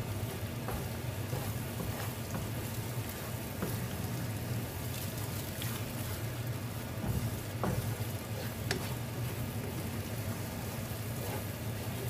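Shrimp paste (bagoong alamang) sizzling in oil in a frying pan, stirred with a wooden spatula, with a few sharp ticks now and then.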